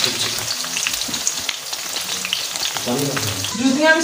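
Chopped onions sizzling and crackling as they fry in oil in an aluminium pot, stirred with a metal slotted spoon.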